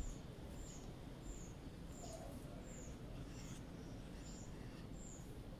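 A small bird calling in the background: short, faint, high chirps, each dipping slightly in pitch, repeated evenly about once every three-quarters of a second over a low steady hum.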